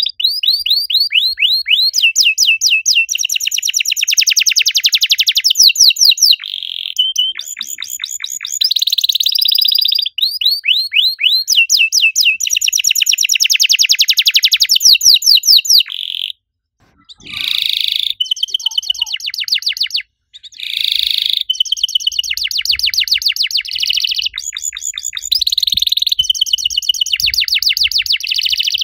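Domestic canary singing a long, continuous song of rapid trills and quick repeated falling chirps. The song breaks off sharply twice, briefly, a little past the middle.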